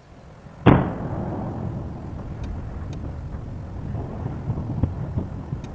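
Volcanic fissure eruption bursting out: a sudden loud boom under a second in, then a continuous low rumble with scattered pops as lava fountains.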